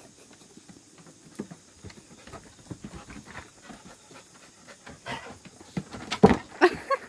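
A raccoon and a pit bull scuffling at play on a wooden deck: light patter and scratching of claws and paws on the boards, with a cluster of louder thumps and scuffles near the end.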